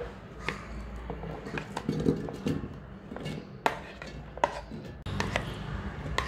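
Irregular light knocks and clicks of kitchenware, about a dozen, as chopped onion pieces are put into a mixer-grinder jar for grinding the masala. A faint low hum runs underneath.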